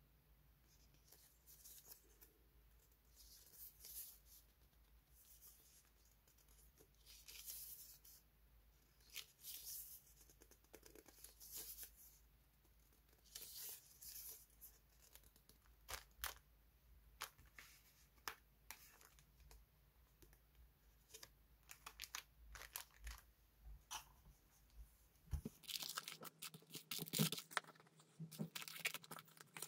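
Stiff paper die-cut stickers and their cellophane packets rustling and crinkling softly as they are handled, in short irregular bursts with quiet in between.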